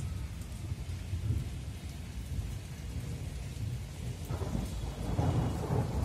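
Thunder rumbling low over steady falling rain; the rumble swells louder and fuller about four seconds in.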